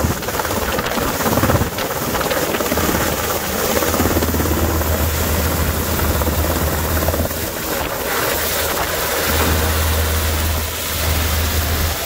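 Black Hawk helicopter hovering low overhead: continuous loud rotor and turbine noise with a deep low throb that swells and eases.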